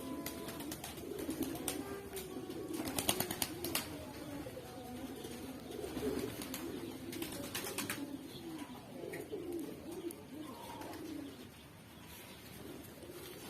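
Domestic pigeons cooing, several overlapping voices. Clusters of sharp clicks come about three seconds in and again about seven seconds in.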